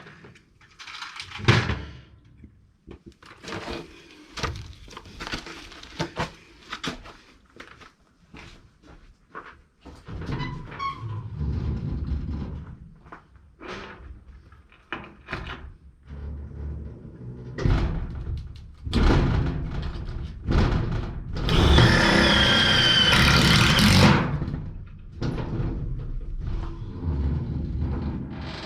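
Hand-tool work on a metal shed: scattered knocks, clanks and thunks of tools and sheet metal, with a loud power drill running for about two and a half seconds, about three quarters of the way through, while drilling a hole for a dynabolt.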